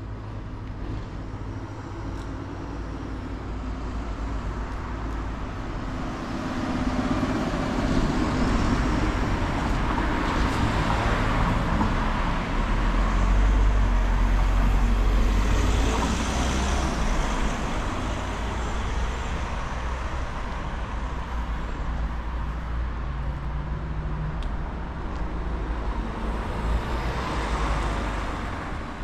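Road traffic: cars passing along the street, their engine and tyre noise swelling as each goes by, loudest about halfway through and again near the end.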